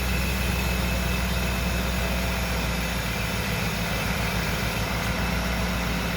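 Supercharged 5.4-litre V8 of a 2002 Ford Lightning pickup idling steadily while warming up after a coolant refill, with a thin steady whine over the low engine note.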